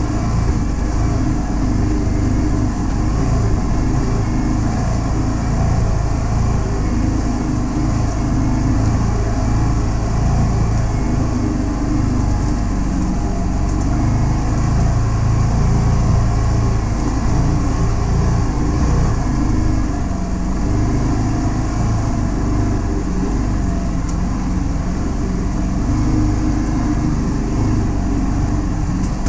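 Can-Am Defender HD10 side-by-side's V-twin engine running steadily as the vehicle drives along a dirt trail, its pitch wavering a little with the throttle.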